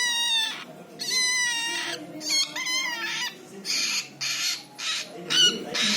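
Cockatiel whistling three wavering, warbled phrases, then giving a run of short, noisy chattering calls about twice a second.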